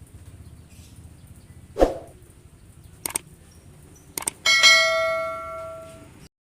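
A single bell-like chime struck once, ringing and fading away over about a second and a half. It comes after a low thump and a couple of short clicks.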